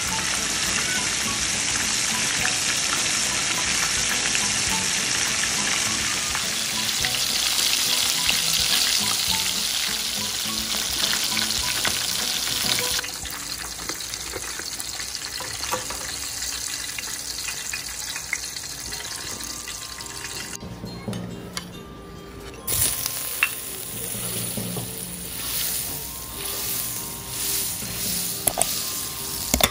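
Chicken wings deep-frying in hot oil, a loud, steady sizzle and crackle. About 13 seconds in it drops to a quieter frying. Near the end butter sizzles in a wok, with a spatula clicking against the metal.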